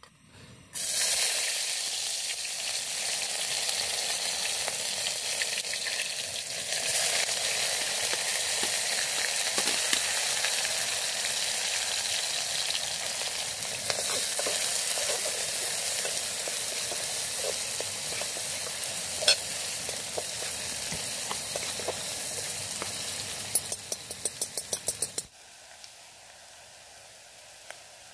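Food frying in a pan over the camp stove: a loud, steady sizzle that starts suddenly about a second in. Near the end comes a quick run of about ten clicks, then the sizzle cuts off.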